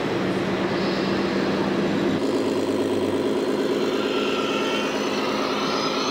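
Diesel truck engine sound from the sound modules of radio-controlled scale semi-trucks, running steadily. The engine note shifts to a different pitch about two seconds in.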